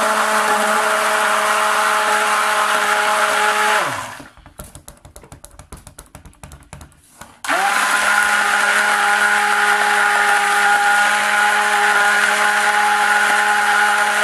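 Hand-held immersion (stick) blender running in a bowl of soap batter, blending it to a thicker trace, with a steady motor whine. About four seconds in it winds down, leaving a few faint knocks. About three seconds later it spins back up and keeps running.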